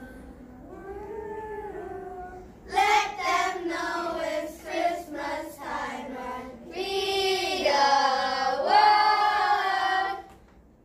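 A group of children singing a vocal exercise, getting louder on cue: soft at first, then loud from about three seconds in with short separate notes, then loud held notes that stop abruptly near the end.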